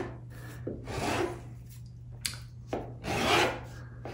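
Flat metal hand file rasping along the edge of a laminate countertop end cap in a few separate strokes, the loudest about three seconds in, trimming the overhanging laminate flush with the counter surface.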